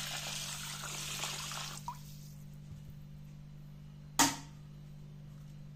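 Water pouring in a stream into a stainless steel pot of rinsed basmati rice, tapering off about two seconds in. A single short knock comes about four seconds in.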